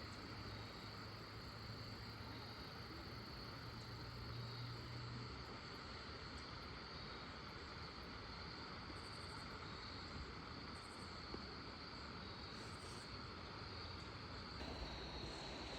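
Faint, steady chorus of night insects holding one high-pitched trill, with a low hum underneath that stops about five seconds in.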